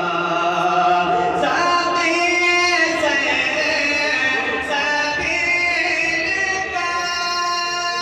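A man singing a devotional Urdu kalaam (naat) into a microphone, in long held notes that slide and waver in pitch.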